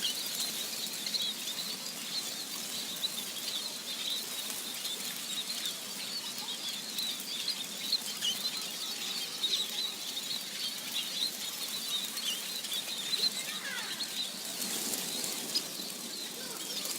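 A flock of small birds chattering: many short, high chirps overlapping in a dense, continuous chorus.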